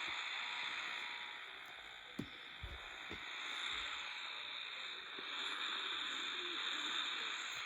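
Steady hiss of static, with a few faint low thumps about two to three seconds in.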